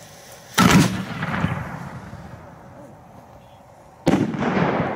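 Aerial firework shell: a sharp bang about half a second in as it is fired from the mortar, then a second loud bang about three and a half seconds later as it bursts, each trailing off in a long rumbling echo.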